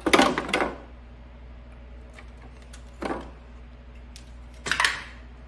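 Clatter and scraping of hard plastic and metal parts being handled and pried during a rear-projection TV teardown. It comes in three bursts: a loud one right at the start, a smaller one about three seconds in, and another near the end.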